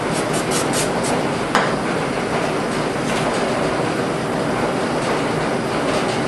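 Steady background noise, with the handling of a metal head gasket on a motorcycle's cylinder block over it: a few brief scrapes in the first second, a sharp metallic click about a second and a half in, and faint rubbing as a shop towel wipes the gasket.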